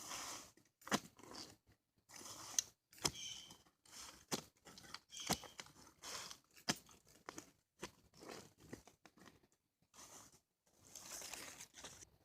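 Gold Armour tri-fold steel shovel digging into ground: repeated sharp strikes and scrapes of the blade, with soil and roots crunching and tearing, roughly one stroke a second.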